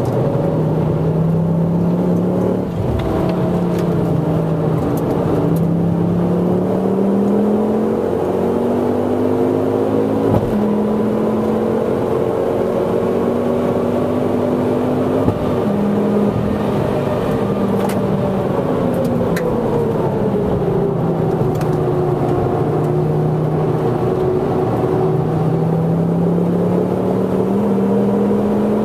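Mk2 Ford Focus ST's turbocharged five-cylinder engine heard from inside the cabin, driven hard on track. Its pitch climbs under acceleration and drops back abruptly a few times, at gear changes or lifts.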